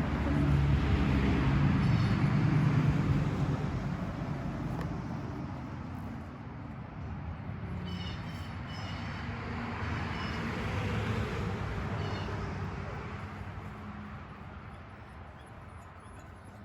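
A motor vehicle passing, its engine and road noise swelling over the first few seconds and then fading away, with a weaker swell again around ten to twelve seconds in. A few short, high bird chirps come about eight and twelve seconds in.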